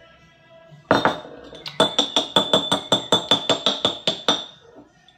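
A single knock, then quick, even clinking of a metal utensil against a ringing dish, about five or six strikes a second for roughly two and a half seconds, as when stirring briskly.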